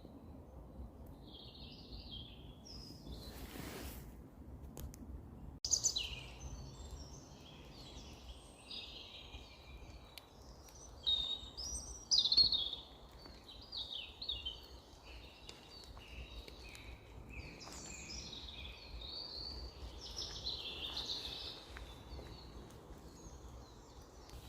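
Several songbirds singing, with overlapping chirps and warbles, over a low steady background rumble. After a few faint chirps, the singing starts abruptly about six seconds in and carries on from there.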